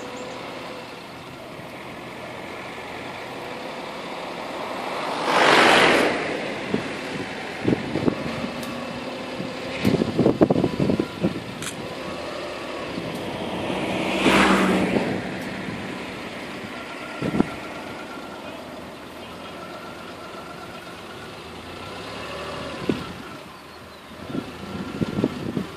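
A vehicle's engine runs with a low, steady hum. Two other vehicles pass by, about six seconds in and again around fourteen seconds, each a swell of road noise that rises and fades. Scattered short knocks and clicks are heard through it.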